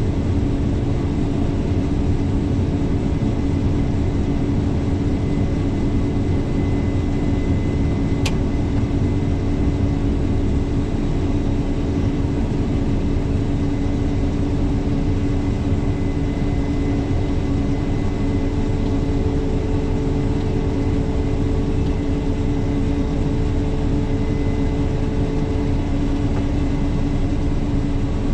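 Diesel engine of heavy farm machinery running steadily under constant load, with a steady hum, and a single sharp click about eight seconds in.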